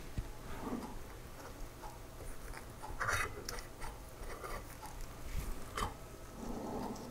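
Faint handling sounds: scattered light clicks and rustles as gloved hands fit the two aluminium halves of a snowblower wormcase together over the auger shaft, with a brief louder rustle about three seconds in.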